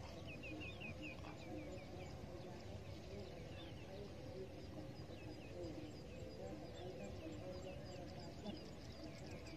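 Small birds chirping: short high calls in a quick run at first, then scattered. Under them is a faint low murmur of distant voices.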